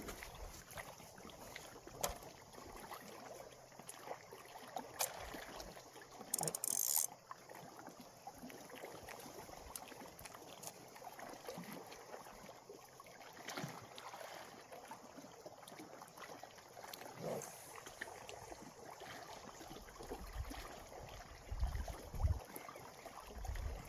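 Gentle water lapping at the shore with scattered small clicks, a brief high hiss about six seconds in, and a few low thumps near the end.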